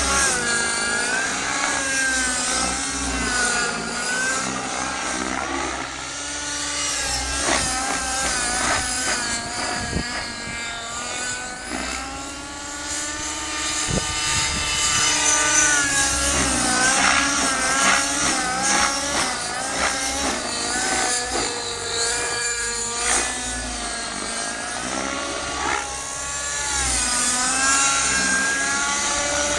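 Align T-Rex 600N nitro RC helicopter in flight: its two-stroke glow engine and rotor whine rise and fall in pitch again and again as it manoeuvres, louder as it passes near at the start and near the end.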